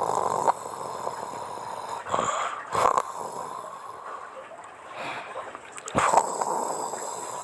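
A woman snoring in her sleep, rasping breaths coming every two to four seconds.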